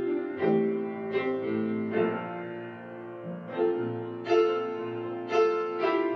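Slow solo piano music from the film's score: single notes struck roughly once a second over lower held notes, each fading after it is struck.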